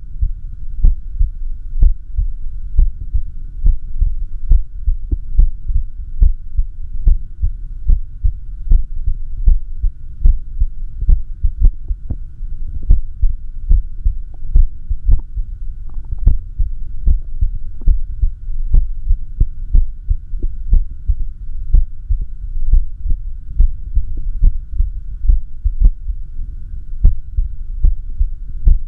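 A person's heartbeat sounds in arrhythmia: short low thuds that repeat at an uneven rhythm, a little more than one a second, over a steady low hum.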